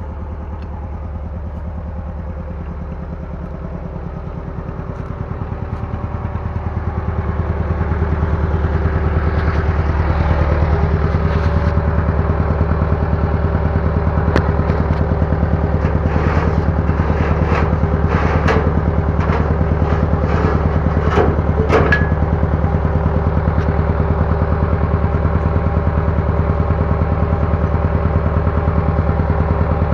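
Bulldozer's diesel engine running steadily and growing louder over a few seconds as it works, with a run of metallic clanks and rattles in the middle.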